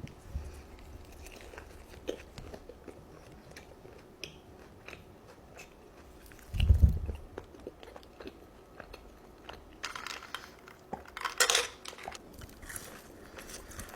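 Close-miked eating sounds: small wet clicks of chewing, then two loud crunchy bites near the end. A loud low thump comes a little before the middle.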